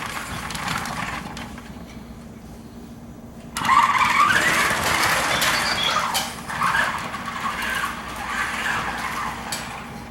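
Star Wars BB-8 Hero Droid toy making electronic warbling chirps that waver up and down in pitch. They start suddenly about three and a half seconds in, after a quieter stretch.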